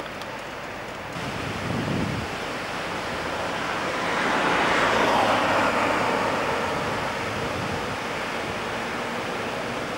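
Road traffic: a passing car's tyre noise swells to a peak about halfway through and fades away, over a steady hiss.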